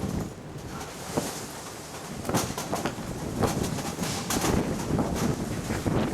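Gusty wind buffeting the microphone in irregular rushes, growing louder after the middle.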